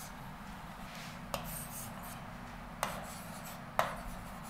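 Marker pen writing on a whiteboard: scratchy strokes with a sharper tap of the tip about one and a half, three and four seconds in.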